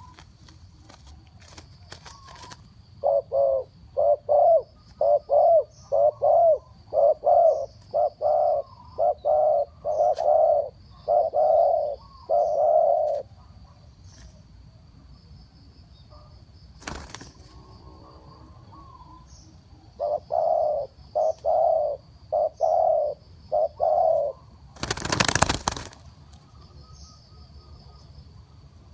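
Spotted dove cooing fast: a long run of rapid coos, more than one a second, then a shorter run after a pause of several seconds. Near the end comes a brief loud noisy burst.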